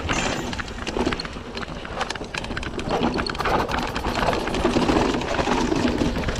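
Mountain bike rattling and clattering down a rocky dirt trail: tyres crunching over dirt and stones, with quick knocks from the bike and a low rumble. It gets busier and louder about three seconds in, as the bike crosses a rocky stretch.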